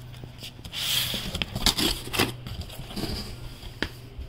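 A cardboard printer box being handled: a rustling scrape about a second in, then a few sharp taps and knocks against the cardboard, over a steady low hum.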